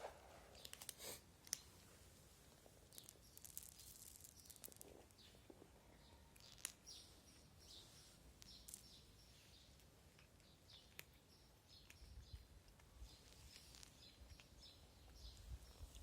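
Faint, scattered bird chirps with a few small sharp clicks.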